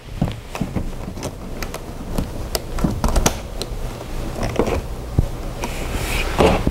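Handling noise as a current clamp's coiled cable is moved and its plug is pushed into the scan tool's auxiliary port: scattered light clicks, knocks and rubbing of cable and plastic.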